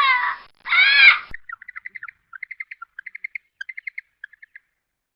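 A loud wavering cry ends about a second in, followed by a small bird chirping in quick runs of short notes.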